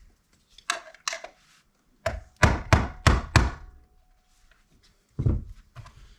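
Tapping on the plastic housing of a mechanical seatbelt-warning chime module to break its heat-sealed top loose: two light knocks, then four sharp taps in quick succession about two seconds in, with a faint ring hanging on briefly after them, and one more tap near the end.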